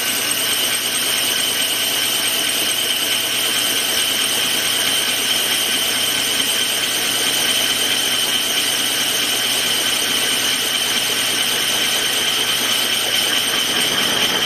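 Metal lathe running under a steady cut, the tool fed into the face of a spinning steam-locomotive wheel and peeling off chips. The sound is a continuous, even machining noise with a steady high whine over it.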